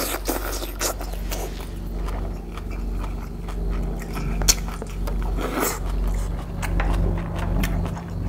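Close-miked chewing of a mouthful of kimchi and rice, with a few sharp clicks, the loudest about four and a half seconds in. Under it runs a low steady drone of a helicopter flying overhead.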